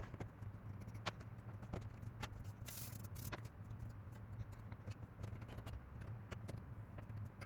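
Scattered light clicks and taps of console parts being handled over a steady low hum, with a brief hiss about three seconds in.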